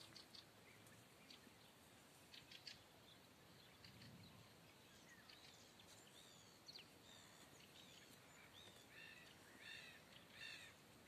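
Faint birdsong: scattered short chirps and arched call notes, coming in quick runs near the end.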